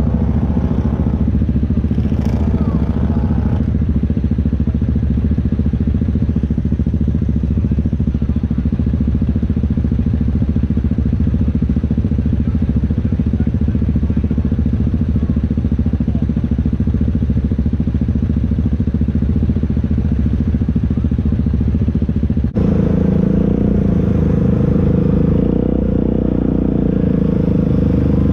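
ATV engine running steadily, close up. Near the end it changes abruptly to a different engine note with a higher, steadier tone.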